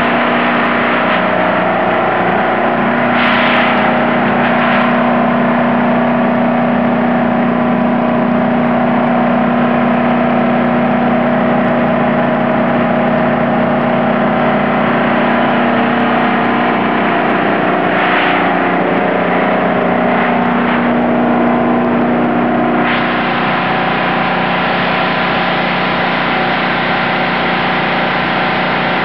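Large industrial generator set's engine running loud and steady during a load test, a dense mechanical hum with several steady tones. A few short swells of noise come and go, and the level drops slightly about two thirds of the way through.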